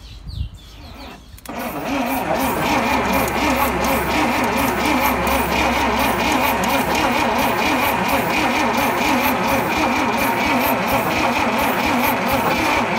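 Dodge D300 truck engine cranking on its starter motor with an even, rhythmic churn, starting about a second and a half in and not catching. The engine is turning over but not firing, after petrol has been put straight into the carburettor.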